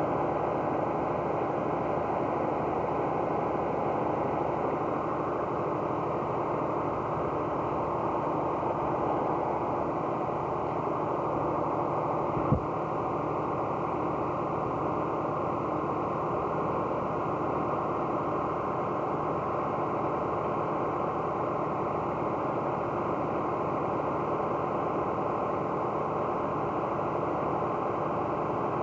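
Steady drone of an engine running at idle, with one sharp click a little under halfway through.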